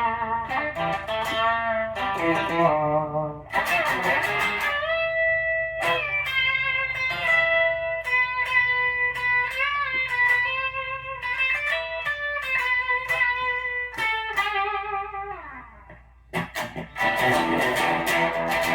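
Warmoth Custom Shop Stratocaster with Lindy Fralin Vintage Hot pickups, played through a One Control BJF-S66 amp. It plays single-note lead lines with bends and vibrato, and a note slides down about fifteen seconds in. After a brief drop it moves to strummed chords near the end.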